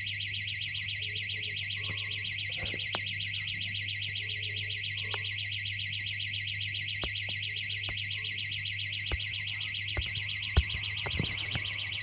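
An electronic alarm sounding continuously as a high, rapidly pulsing tone, over a steady low hum, with a few sharp clicks in the second half.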